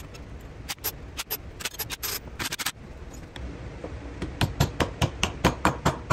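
Sharp clanks and clicks of steel C-clamps and parts being handled on a wooden workbench. Over the last couple of seconds comes a quicker run of knocks, about four or five a second, while a steel shaft is worked into a stacked plywood hub.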